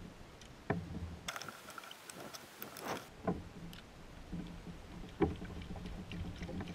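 Quiet water sounds around a fishing kayak at sea, with a few short, light knocks and a brief hiss a little over a second in.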